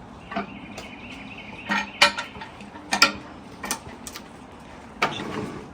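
Several sharp metal clinks and knocks spaced irregularly over a few seconds, from sawmill parts and tools being handled while the dull band blade is changed. A faint steady high tone sounds in the first second and a half.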